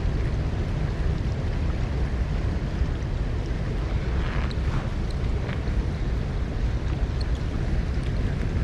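Steady rush of high, swollen spillway water, with wind buffeting the microphone in a low, fluctuating rumble.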